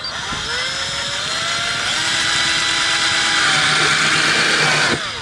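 A 12-volt cordless drill driving a black drywall screw into the plastic engine-bay panel. The motor whine climbs in pitch as it spins up, runs steadily, and cuts off abruptly near the end.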